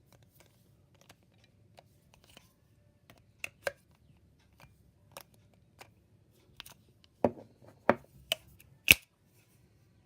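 Scattered small clicks and taps of a small battery-operated hobby rotary tool being handled, with a few louder knocks between about seven and nine seconds in; the motor is not running.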